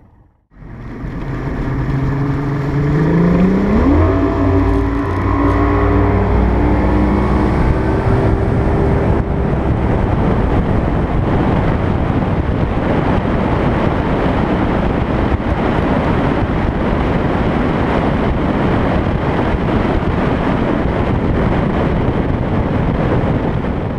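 Bass boat's outboard motor throttling up, its pitch climbing over the first few seconds, then holding at speed under a steady loud rush.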